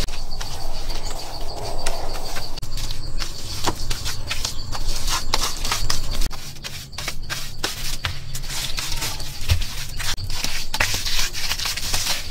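Hands working wet mud plaster onto a wall: irregular short wet slaps and smearing, rubbing strokes.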